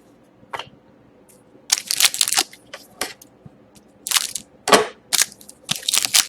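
Crinkling of plastic and foil wrapping as trading cards are handled. It comes in short, irregular crackling bursts, three clusters with a few single clicks between them.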